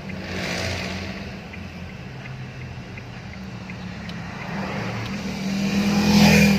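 Steady road and engine hum of an Isuzu D-Max pickup on a road test, with traffic swishing past: a short swell about half a second in and a louder one that builds and peaks near the end.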